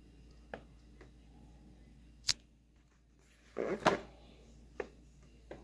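Pages of a large, heavy hardcover book being turned by hand: a few light taps, a sharp tick a little past two seconds in, and a louder paper swish and rustle about three and a half seconds in.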